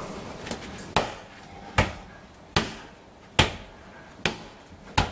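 A ball struck again and again against a wall in a solo pepper drill, bumped off the forearms. Six sharp smacks come at an even pace, about one every 0.8 seconds.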